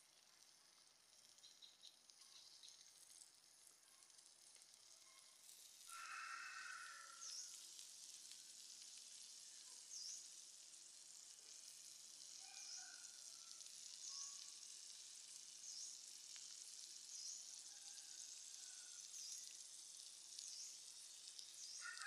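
Shrimp on bamboo skewers sizzling faintly on a flat stone slab heated by a wood fire, the sizzle growing louder about six seconds in as the shrimp heat. Short repeated chirps sound about once a second over it.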